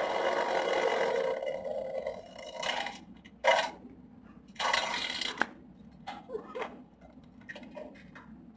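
A series of hissing fart sounds: one long one lasting about three seconds, then shorter bursts, with a few faint ones near the end.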